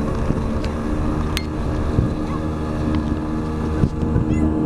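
Yamaha 30 two-stroke outboard running steadily at speed, pushing a small aluminum boat through the water while towing a tube. There is wind on the microphone and a short knock about four seconds in.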